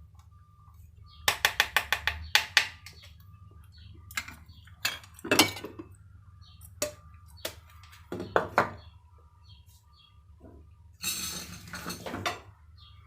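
Kitchen utensils and dishes clinking and knocking: a quick run of taps about a second in, then scattered single knocks, and a longer noisy scrape near the end.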